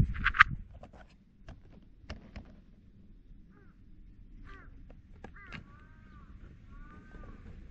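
A short sharp clatter at the very start, then a bird calling several times in the second half with short calls that rise and fall in pitch.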